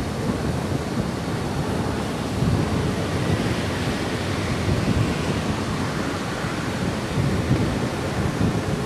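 Wind buffeting the camera microphone: a steady rushing noise with uneven low gusts.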